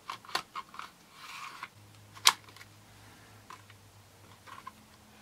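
Plastic clicks and a short sliding scrape as a DJI Phantom 2 flight battery is pushed into its bay, with one loud sharp click a little over two seconds in, followed by a few lighter clicks of handling.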